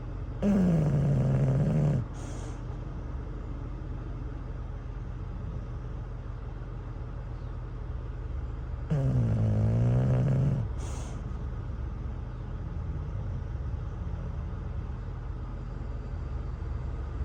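English bulldog snoring in its sleep: two long, loud snores about eight seconds apart, the first falling in pitch, each followed by a short hiss. This kind of noisy breathing is typical of the breed's short, flat-faced airway. A steady low rumble of idling vehicles runs underneath.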